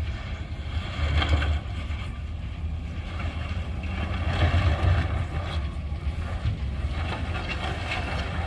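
Heavy earthmoving machinery's diesel engine running with a steady low rumble, swelling louder about a second in and again around four and a half seconds in.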